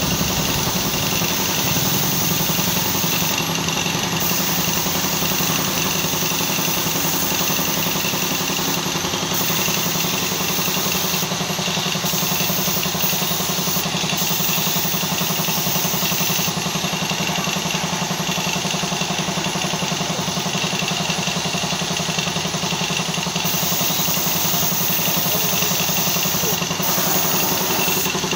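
Air compressor for spray painting running steadily, with a fast, even pulse under a steady hiss.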